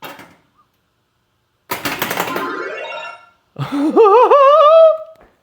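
Bally AS-2518-50 pinball sound board producing its electronic startup sounds through the machine's speaker on first power-up after repair, a sign the board now works. It starts with a hissy noise burst, then gives a loud warbling tone that climbs in wobbling steps.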